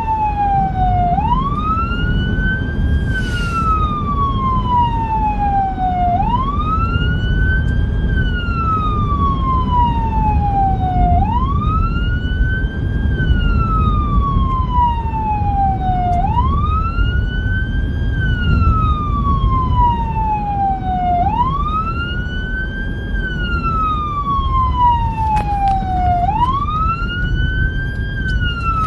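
Whelen 295SL100 electronic siren sounding a wail, sweeping up quickly and falling slowly about every five seconds. Steady road and engine noise of the moving vehicle runs underneath.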